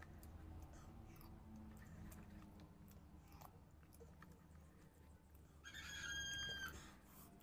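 Faint chewing and slurping of instant noodles. Near the end comes a brief high, steady tone lasting about a second.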